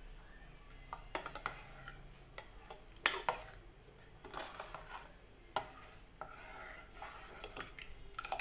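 Metal ladle stirring cooked moong dal in a pressure cooker pot, scraping and knocking against the pot's metal sides in irregular clinks. The sharpest knock comes about three seconds in.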